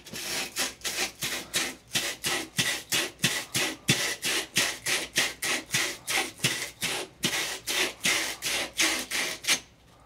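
Wire brush of a pipe-cleaning fitting brush twisted back and forth on the end of a copper water pipe: rhythmic scraping, about three strokes a second, that stops just before the end. It is scouring the copper bright for flux and solder.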